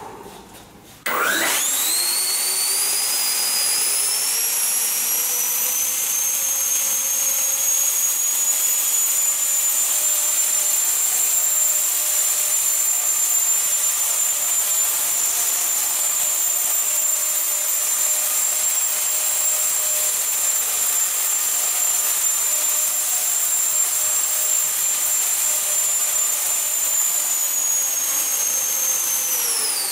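Eleven electric ducted fans of a large RC Dornier Do 31 model, on a 12S high-voltage setup, spooling up about a second in with a rising high-pitched whine, holding a steady whine while the model hovers, then spooling down at the very end.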